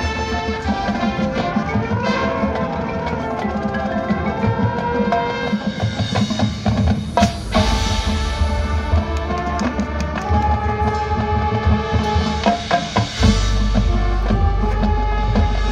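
Marching band playing: held chords over marching and front-ensemble percussion. There is one sharp, loud hit about seven seconds in, and a deep low bass sound comes in soon after and again near the end.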